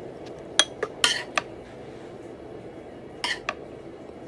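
Serving spoon clinking against a pan and a glass bowl while beef is spooned onto a dish of rice: a quick run of sharp clinks in the first second and a half, then two more a little past three seconds in.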